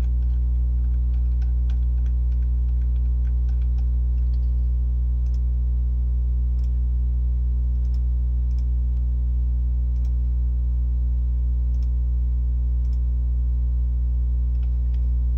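Steady electrical mains hum with a stack of overtones, the loudest sound throughout, with faint scattered clicks of a computer mouse.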